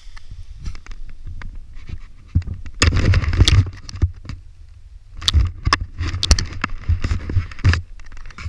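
Irregular bursts of rustling and scraping with wind buffeting the microphone, as a paraglider pilot handles the camera beside his landed wing. The loudest bursts come about three seconds in and again in the second half.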